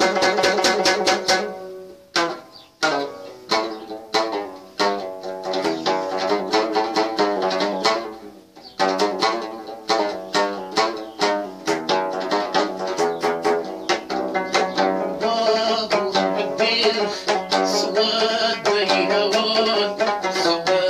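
Moroccan lotar, a plucked skin-bellied lute, playing a quick run of plucked notes, thinning out briefly about two seconds in and again about eight seconds in.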